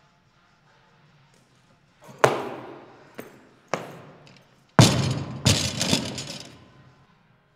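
A 160 kg barbell loaded with ATX bumper plates, jerked and then dropped. About two seconds in there is a sharp clatter as the bar is driven overhead. About five seconds in comes a heavy crash as it is dropped onto the wooden platform, then a second bounce half a second later, with rattling that dies away over about two seconds.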